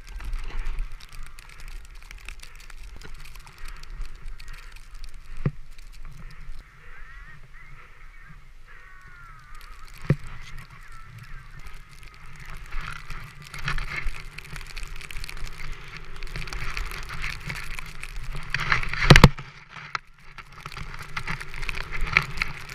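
Splitboard riding down fresh snow, heard through a GoPro Hero 4: a steady, muffled rush of the board sliding and carving through snow, with brief squeaky whines as the edges bite. A few knocks are heard along the way, the loudest a hard one about 19 seconds in as the board hits something under the thin early-season snow.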